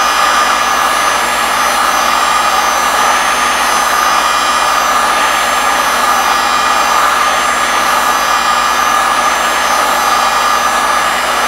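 Heat gun running steadily: a loud rush of hot air with a steady whine from its fan, blowing on an aluminium thermal plate to preheat it so the solder on the power transistors' collector pins can be melted out.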